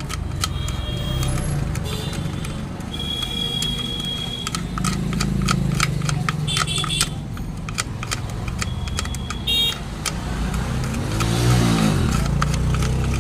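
A screwdriver tip scraping and clicking against the mixer grinder's metal nuts, with short squeals of metal on metal, over a steady low rumble. Near the end a vehicle engine rises and falls in pitch.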